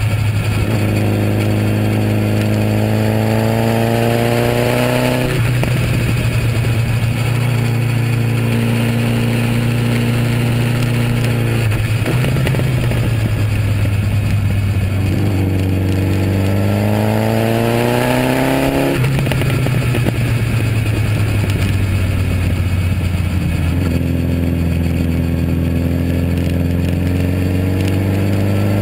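Onboard sound of a sport motorcycle engine under hard acceleration on a race track. The revs climb for a few seconds, then fall away sharply, several times over, under a constant heavy rush of wind.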